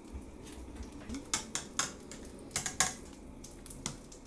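A metal fork clicking and tapping against a plastic container and dishes, a scatter of short sharp clicks at uneven intervals, the loudest a little before the three-second mark, while bread is dipped in beaten egg for French toast.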